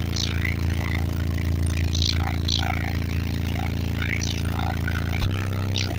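Car-audio subwoofers in a Dodge Dakota pickup playing a loud, steady deep bass note that shifts about five seconds in, with faint vocals from the track above it.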